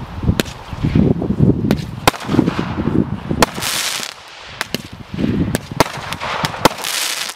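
Zeus Fireworks 'Mini Gods - Athena' seven-shot firework cake firing: low thuds of shots launching and a run of sharp bangs as they burst. Two spells of dense crackling come from its crackle effect, one about three and a half seconds in and one near the end.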